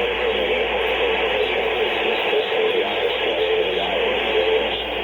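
Steady hiss and static from a radio receiver, with faint, indistinct audio underneath.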